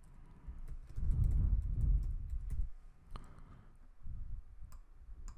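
Typing on a computer keyboard: quick runs of keystrokes in two bursts, with a short lull about three seconds in.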